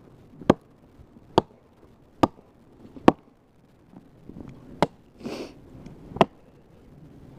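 Gransfors Bruks small forest axe striking a snow-covered log one-handed, six sharp chops, the first four close together and two more after short pauses. The strikes sound hard, which the chopper likens to smacking glass, with the axe bouncing off the wood.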